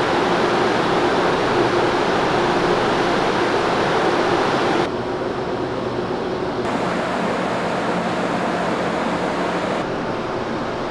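Steady mechanical rush with a low hum from the ferry's machinery around the passenger gangway. The noise changes abruptly about five seconds in and again near the end, as the shot changes.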